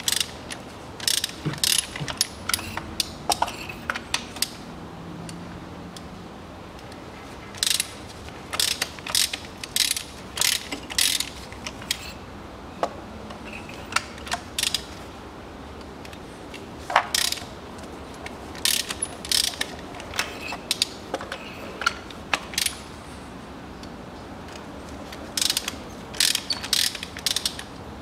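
A ratchet wrench clicking in about five quick runs of rapid ticks, with pauses between. It is working a 16 mm spark plug socket to unscrew the spark plugs.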